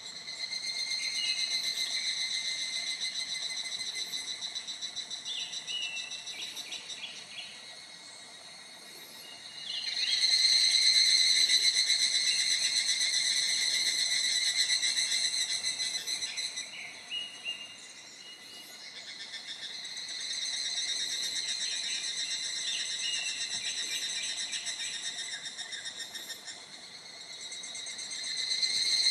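Insects shrilling in a steady, fast-pulsing high-pitched chorus that swells louder and fades back in waves lasting several seconds, with a few short chirps over it.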